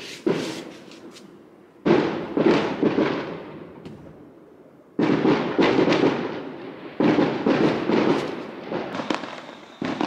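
Aerial fireworks going off: clusters of sudden bangs and crackles, at the start, about two seconds in and again at about five and seven seconds, each dying away over a second or two.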